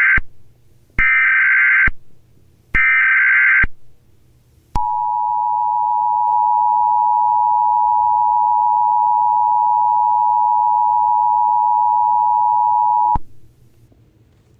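Emergency Alert System SAME header: the tail of one harsh digital data burst and two more bursts of about a second each. After a short gap comes the steady EAS two-tone attention signal, held for about eight seconds before it cuts off.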